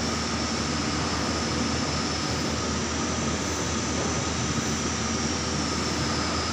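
Large lathe running steadily, turning a heavy cylindrical die in its four-jaw chuck: an even machine hum with a steady high whine.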